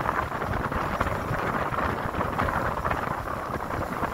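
Steady rushing noise of a boat under way: wind buffeting the microphone over water rushing past the hull.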